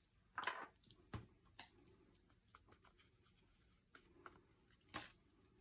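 Faint, scattered light taps and rustles of paper craft materials being handled, the loudest about half a second in and near the end.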